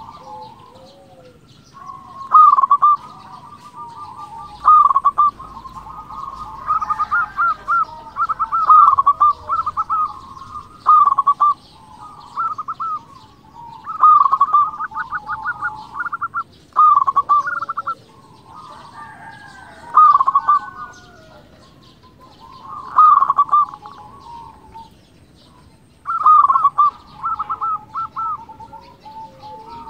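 Local zebra dove (perkutut) cooing in full voice. Phrase after phrase of quick stuttering coos comes every two or three seconds.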